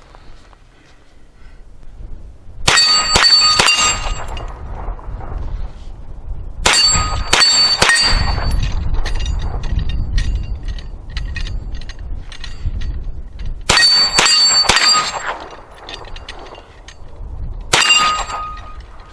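Rapid 9mm shots striking steel target plates, each hit ringing out with a metallic clang. There are four quick strings of two to four hits each, with the ringing dying away after each string.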